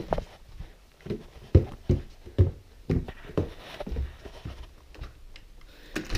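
Quick footsteps thudding down a flight of stairs, about two steps a second, then a door latch clicking near the end.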